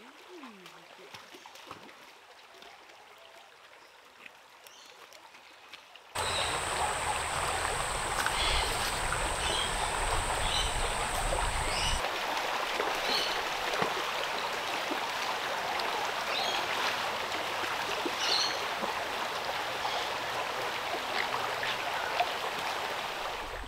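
Shallow rocky creek running and splashing over stones, fairly quiet at first and then much louder from about six seconds in. Short high chirps sound now and then over the water, and a steady high tone runs for a few seconds after the jump.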